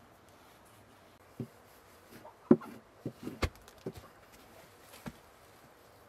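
Scattered knocks and soft thumps of flatbread-making: a wooden rolling pin, a dough board and hands at work by a clay tanoor oven. The loudest is a sharp knock about two and a half seconds in, with a quick cluster of smaller knocks just after.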